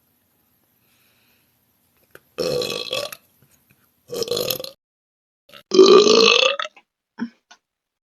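A woman belching three times in a row, each burp a second or less long, with the third the loudest and rising in pitch as it goes.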